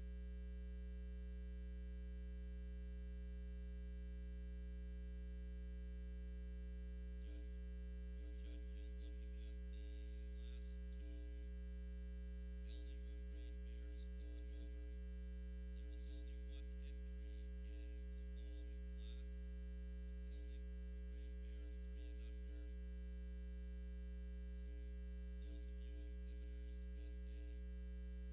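A steady low electrical mains hum, with faint scattered crackles and ticks from about seven seconds in until near the end.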